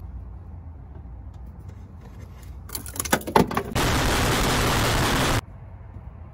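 Low steady background, then a quick run of sharp bangs about three seconds in, followed by a loud, harsh, distorted noise burst lasting about a second and a half that cuts off suddenly: an inserted rage-meme sound effect.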